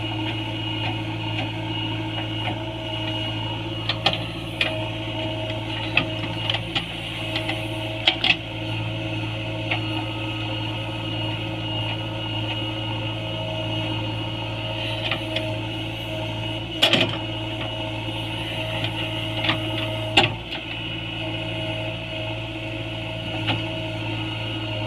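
JCB 3DX backhoe loader's diesel engine running steadily under work, with scattered sharp knocks and clanks from the digging machine, the loudest about 17 and 20 seconds in.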